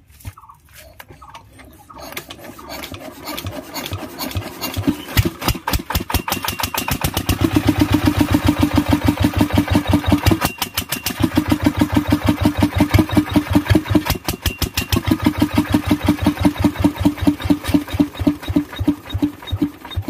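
Kirloskar diesel engine starting: its rapid, even chugging builds over the first few seconds and then runs strongly. The chugging dips briefly twice and fades near the end.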